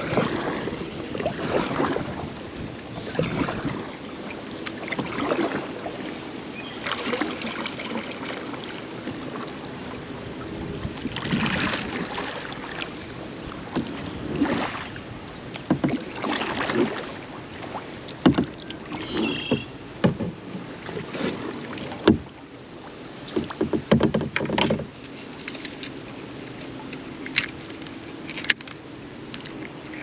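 Kayak paddle strokes dipping and splashing in the water at an uneven pace, roughly one every second or two, with a few sharp clicks near the end.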